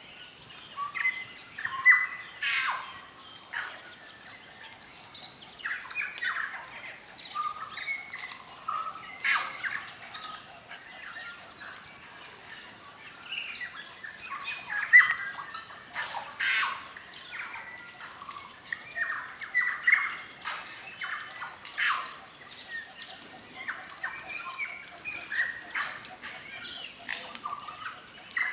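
Chorus of New Zealand native forest birds, many overlapping whistles, chirps and sharp squawking notes coming one after another.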